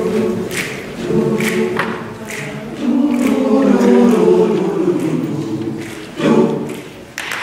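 All-male high school choir singing a cappella in close harmony, holding long chords and ending on a final chord that cuts off sharply near the end.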